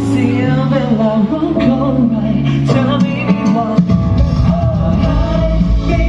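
A song sung in Thai over band accompaniment, with sustained sung notes; heavy bass and drums come in about four seconds in.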